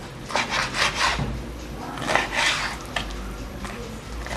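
Kitchen knife sawing through raw liver and scraping on a white plastic cutting board while cutting it into cubes: a series of uneven scraping strokes.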